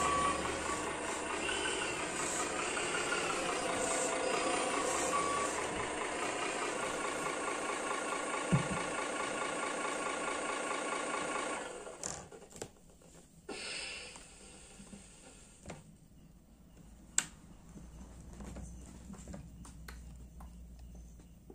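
Miniature RC truck's sound module playing a recorded truck sound with reversing beeps through its small speaker. It cuts off suddenly about 12 seconds in, leaving a few sharp clicks.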